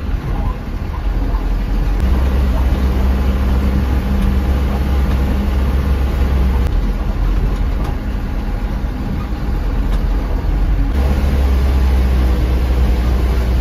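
Dump truck's diesel engine running while driving, heard from inside the cab with road rumble. The low engine drone grows stronger about two seconds in, eases off after about six seconds, and strengthens again near the end.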